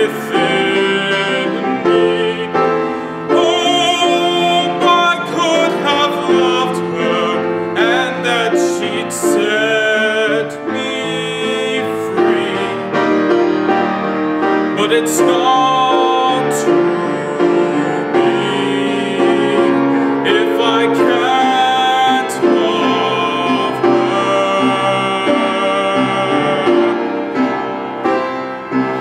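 A man singing a musical-theatre song with piano accompaniment.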